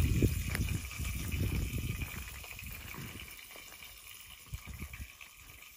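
Wind gusting across the phone's microphone: an uneven low rumble, strongest at first and dying away after about three seconds.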